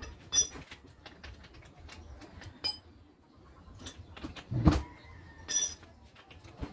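Metal parts or tools clinking and tapping against each other: several sharp, ringing clinks and lighter ticks, with one duller, heavier knock a little past the middle.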